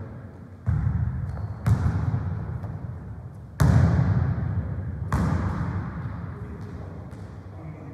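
A football struck hard four times in a tennis-football rally, kicks and bounces on the hall floor, the third the loudest. Each thud rings on in the echoing sports hall.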